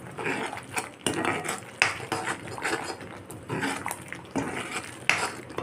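A metal spoon stirring thick tomato masala frying in a pan, scraping through the paste and knocking against the pan at uneven intervals.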